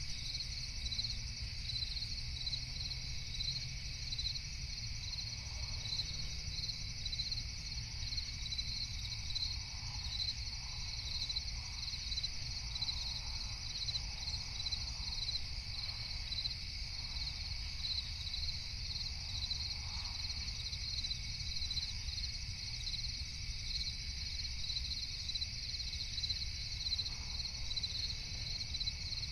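Crickets chirping at night in a steady, regular pulse, over a low steady rumble.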